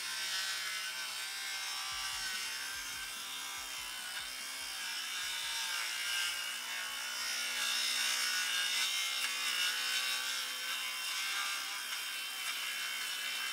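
SKIL PWR CORE 20 XP brushless 7-1/4 in. rear-handle cordless circular saw, running on two 20 V batteries, ripping lengthwise through a pressure-treated 6x6 with its 24-tooth carbide-tipped blade. It gives a steady motor whine over the hiss of the cut, holding its pitch under load.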